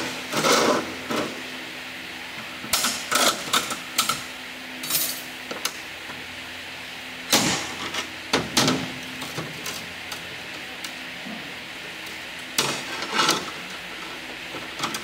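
Hand tools and metal parts of a Nissan JF017E CVT transmission clinking and clanking during teardown, in short irregular clusters of sharp metallic knocks, over a steady background hum.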